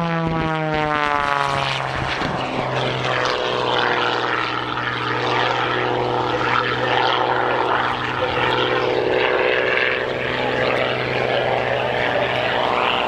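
Modified Pitts S-2S aerobatic biplane's 400-horsepower engine and propeller passing low and fast, the pitch dropping sharply as it goes by. The engine then drones steadily on as the biplane climbs away through its manoeuvres.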